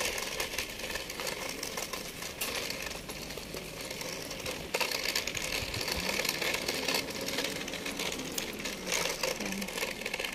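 Handling noise and footsteps from a handheld phone carried while walking on pavement: a steady rustle with scattered soft knocks.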